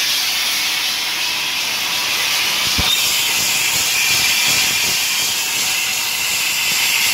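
Dry ice blasting machine's gun spraying, a loud steady hiss of compressed air, with a brief low thump about three seconds in.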